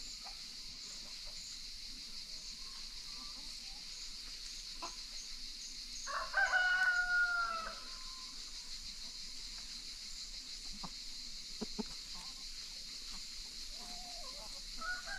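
A rooster crows once about six seconds in, one long call of about a second and a half that drops in pitch at the end. A steady high hiss runs underneath, with a few soft clucks and small clicks.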